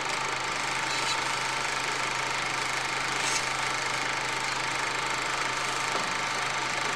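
Film projector sound effect running steadily: an even mechanical whirring noise over a constant low hum.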